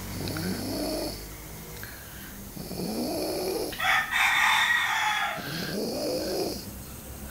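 Snoring in slow, drawn-out rasping breaths, three in all, each one rising and falling in pitch. About four seconds in, a louder, higher sound cuts in for nearly two seconds between the second and third snores.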